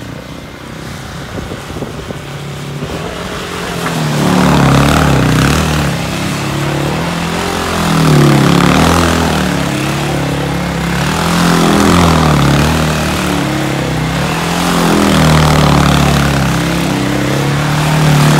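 KTM 450 SX quad's single-cylinder four-stroke engine revving hard in repeated swells as the quad spins donuts on ice. The revs rise and fall about every three to four seconds. The engine is lower and quieter for the first few seconds before the revving picks up.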